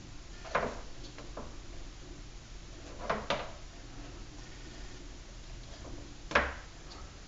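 A few brief scuffs and knocks from handling a plastic number plate and its wet vinyl graphic as the graphic is pressed down, spaced irregularly over several seconds. The last one is the loudest.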